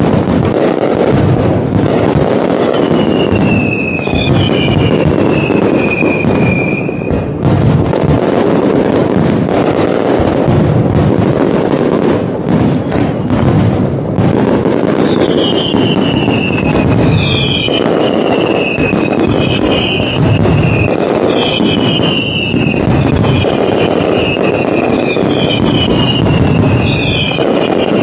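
Fireworks display going off without a break: a dense crackling and banging of shells. Over it come many falling whistles from whistling fireworks, a few about three seconds in and an almost unbroken run of them from about fifteen seconds on.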